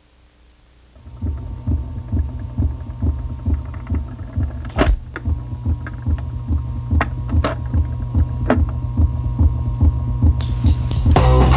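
Near silence for about a second, then a low throbbing bass pulse of several beats a second from a stereo speaker, with a faint steady hum and a few sharp clicks. Near the end a loud rock song starts.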